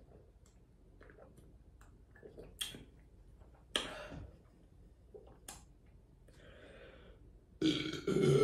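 Soft mouth clicks and swallowing from sips of carbonated grapefruit soda, with a couple of sharper gulps. Near the end comes a loud burp.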